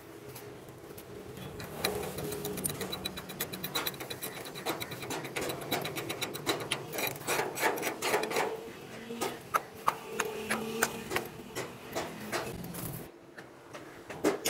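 Slag being chipped and scraped off a fresh stick-welded fillet bead on steel plate with a hand tool: rapid, irregular metallic taps and scraping with a few sharper knocks, starting about two seconds in and dying away shortly before the end.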